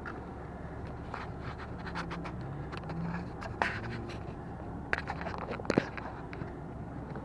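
Handling noise: a few sharp clicks and knocks over a steady low rumble, the loudest about three and a half seconds in and twice more near the end.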